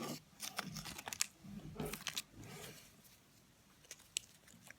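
Fortune cookie crunching and crackling up close: a dense run of sharp cracks over the first two to three seconds, then a few scattered clicks.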